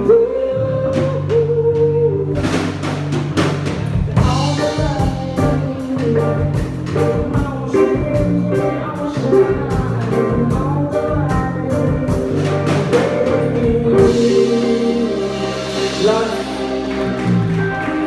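Music: a song with a held singing voice over drums and bass, the drum hits dropping away for the last few seconds.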